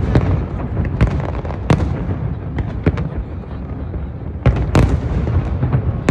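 Aerial firework shells bursting one after another: about a dozen sharp bangs at uneven intervals, several close together about two-thirds of the way through, over a continuous low rumble from the display.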